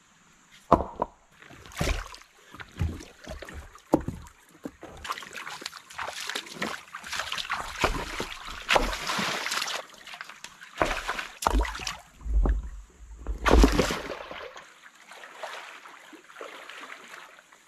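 Water splashing and sloshing in a shallow stream, with several heavy plunks and thuds as stones are dropped into the water. A stretch of dense, continuous splashing comes from a person and a dog wading through it.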